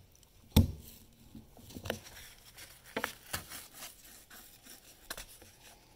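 Closed scissor blades pushed and twisted through corrugated cardboard to bore holes. There is one sharp crunch about half a second in, then a few softer scrapes and clicks.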